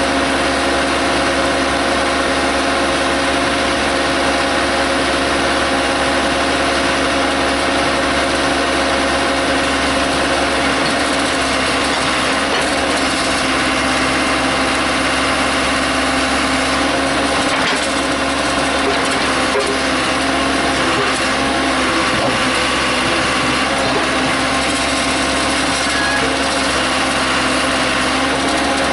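Case 580C backhoe's engine running steadily.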